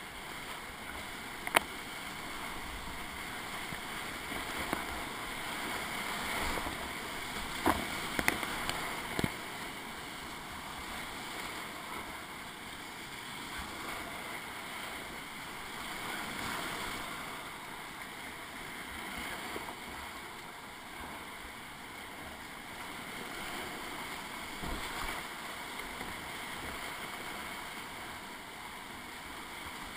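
Whitewater rapids rushing steadily around a kayak, with a few sharp knocks: one about a second and a half in and a short cluster around eight to nine seconds in.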